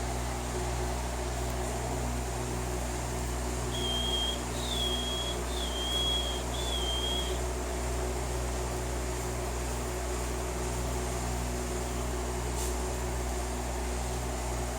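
Green-winged saltator giving four short, thin whistled notes in a quick series about four seconds in, over a steady mechanical hum like a fan.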